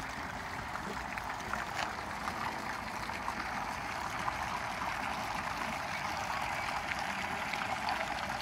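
Fountain water splashing steadily into a stone basin, a continuous even rush without breaks.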